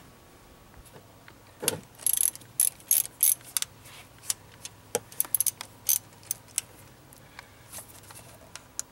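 Hand ratchet clicking in short, irregular runs as it loosens the fuel rail bolts on an engine, after a single knock about a second and a half in.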